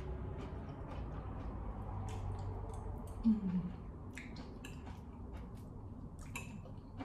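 Someone eating: chewing, a short falling hum of the voice about three seconds in, then a run of light clicks as a metal fork taps and scrapes a ceramic plate and bowl in the second half.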